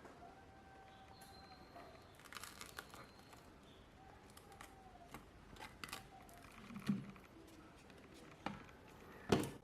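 Scattered light clicks, taps and crinkling from handling a phone and small repair tools, with a few louder knocks, the loudest just before the sound cuts off abruptly.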